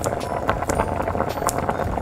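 Sauce simmering in a small steel wok, bubbling with a steady crackle of irregular pops.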